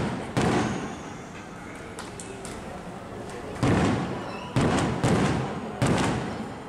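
Fireworks bursting: one boom about half a second in, then after a lull four more in quick succession, each dying away over about a second.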